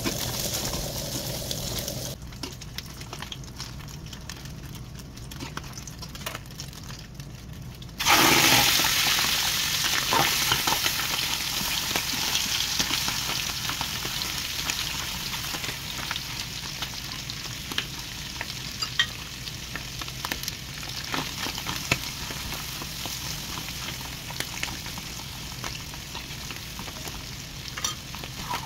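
Frying in an aluminium pan: small pieces of fat sizzle, then about eight seconds in the sizzle jumps suddenly loud as a panful of offal (liver, lung and tripe) goes into the hot fat. It settles into steady sizzling with scattered crackles.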